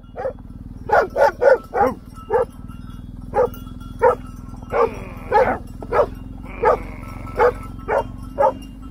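A dog barking repeatedly: about sixteen short barks in irregular runs, roughly two a second, over a steady low drone.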